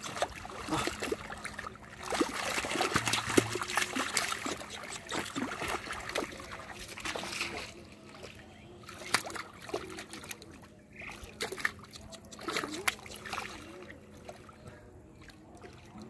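Hands groping through shallow muddy water: irregular splashing, trickling and squelching mud, busier in the first half and quieter later on.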